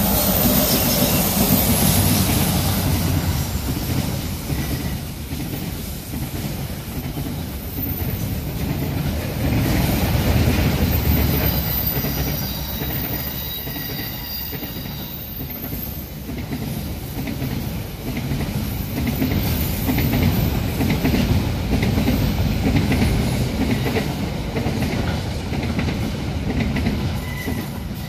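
Freight train passing close by: a New Zealand EF-class electric locomotive goes past first, then a long string of container flat wagons follows, its steel wheels running steadily on the rails. A faint, high wheel squeal comes in about halfway through.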